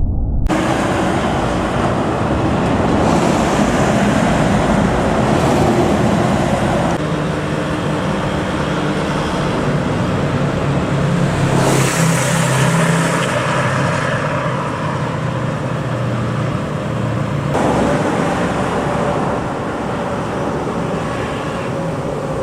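Road traffic passing at speed: steady tyre and engine noise, with a deeper engine drone through the middle and one vehicle rushing close by about twelve seconds in.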